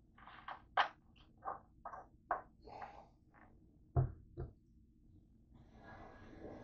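A run of small clicks and knocks from handling, then a 2-liter plastic soda bottle set down on a counter with a low thud about four seconds in, and a second, lighter knock just after. A soft hiss follows near the end.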